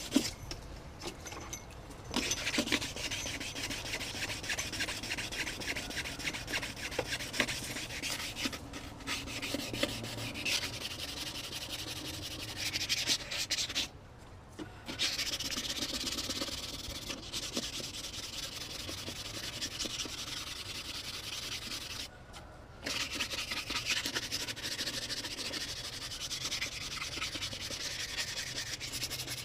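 Sandpaper rubbed by hand over a Honda Si wheel's rim in quick back-and-forth strokes, stopping twice briefly.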